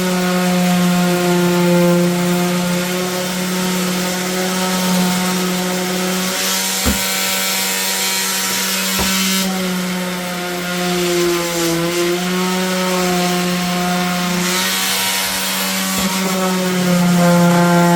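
Electric power tool running steadily on a plywood edge, its motor holding an even hum. The pitch sags briefly about two-thirds of the way through as it takes more load, and there is one short knock near the middle.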